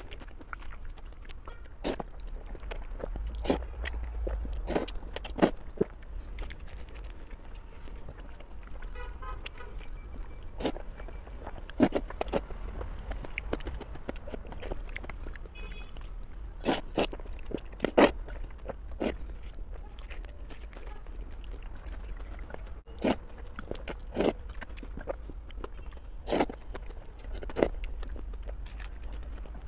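Close-miked eating: crisp bites into a fried flatbread and chewing of noodles, with sharp irregular crunches every second or so. A low steady hum runs beneath.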